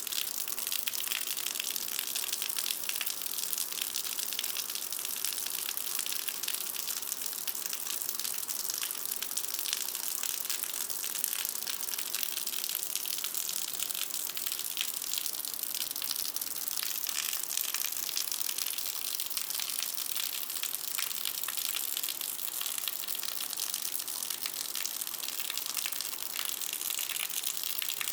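Intense rain pouring onto concrete, a steady dense hiss full of fine spattering ticks, with hard drips hitting a gutter.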